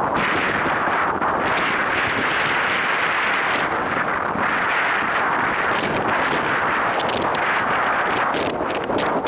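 Strong wind buffeting the microphone, a loud, steady rushing roar.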